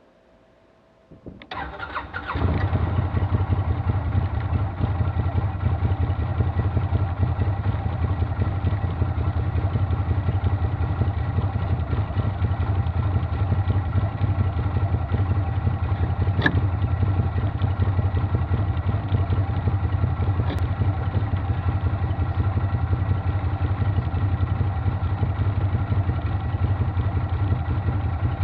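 Arctic Cat Wildcat 1000 side-by-side's big V-twin engine starting about two seconds in, catching quickly, then idling steadily with a deep, even rumble, heard from inside the open cab.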